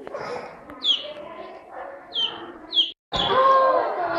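Chicks peeping: short, high, falling peeps about once a second over a faint room murmur. About three seconds in the sound breaks off abruptly and comes back louder, with children's voices and more peeps.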